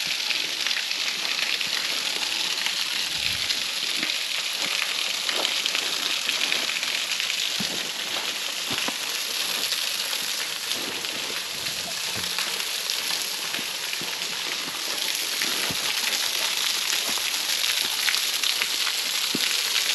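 Low-flow waterfall splashing, a steady hiss, with scattered light taps and crackles over it.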